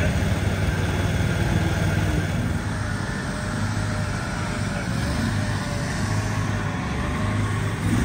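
Steady low drone of engine-driven machinery running, with a faint wavering whine through the middle.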